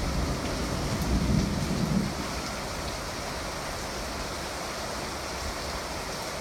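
Steady rush of thunderstorm rain and wind, with a low rumble that fades out about two seconds in.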